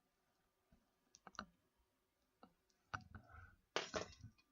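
Sharp clicks and light rattles of small mounting parts for a Corsair H55 CPU water cooler being handled and worked out of their bracket: a few clicks about a second in, more around three seconds, then a longer scraping rustle near the end.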